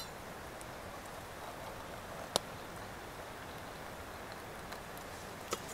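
Hot water pouring in a thin stream from a kettle into a stainless steel mug, a steady trickling splash. A sharp click comes about two and a half seconds in and a smaller one near the end.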